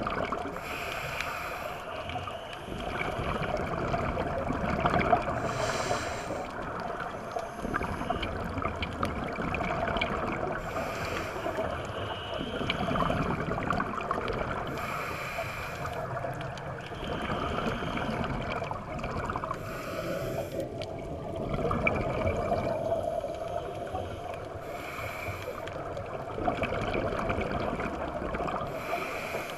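Scuba breathing heard underwater: a burst of exhaled regulator bubbles gurgling about every five seconds, over steady underwater noise.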